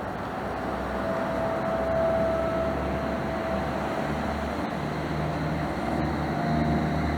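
Federal Thunderbolt 1000 outdoor warning siren running on its Attack test signal: a broad roar with a faint held tone, growing slowly louder.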